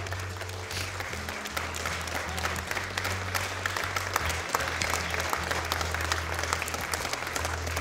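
Crowd of guests applauding, many hands clapping throughout, over background music with a low bass line.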